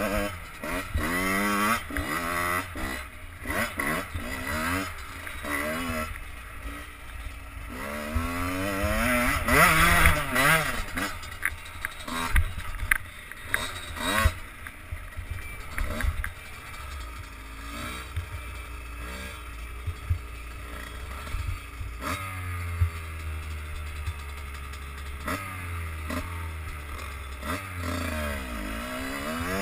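Enduro motorcycle engine heard from the rider's helmet, revving up and falling back over and over as it works across rough terrain. It revs hardest about ten seconds in.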